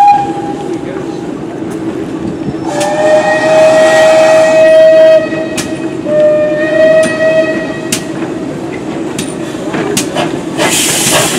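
GWR 5700 Class pannier tank locomotive moving slowly, giving two long whistle blasts about three and six seconds in, with an occasional metallic clank. A burst of steam hiss comes near the end.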